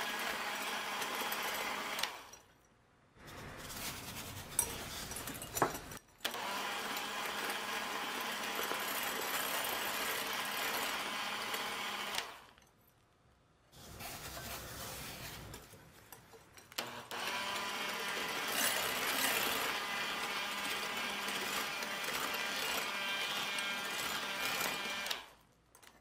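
Electric hand mixer whipping egg whites and sugar into meringue: a steady motor whir that stops twice for about a second and cuts off near the end. Between stretches it runs more quietly for a few seconds, with a couple of sharp clicks.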